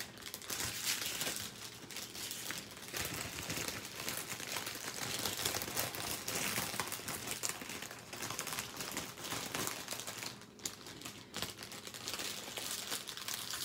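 Plastic packaging of a diamond painting kit crinkling and crackling as it is handled, with a brief lull about ten seconds in.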